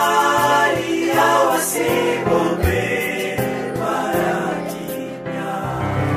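Gospel song sung by male voices in choir-like harmony over instrumental backing.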